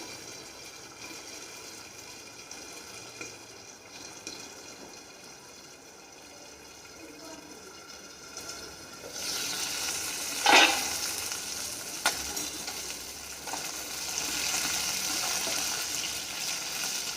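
Food frying in hot oil in a pan: a soft sizzle that jumps to a louder sizzle about nine seconds in, with a short metal clatter about a second later.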